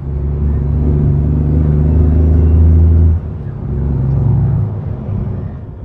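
Western Star truck's diesel engine heard from inside the cab, running loud and steady, then dropping off sharply about three seconds in as the driver changes gear. It picks up again briefly before easing off near the end.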